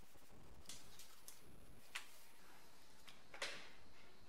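Faint, scattered ticks and light taps from hand work on a car's bare metal windscreen frame. The loudest comes about three and a half seconds in.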